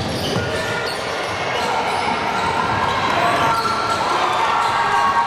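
Basketball bouncing on a gym floor during play, a series of short thuds, with the chatter of players and spectators.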